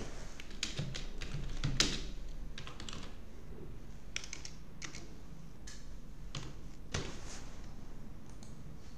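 Typing on a computer keyboard: scattered, irregular keystrokes with short pauses between them.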